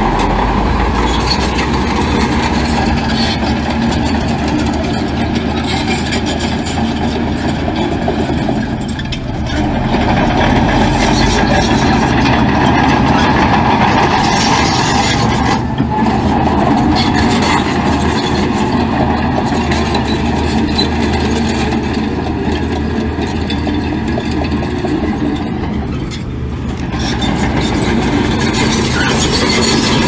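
Heavy diesel engine of earthmoving machinery running steadily under work, easing off briefly twice.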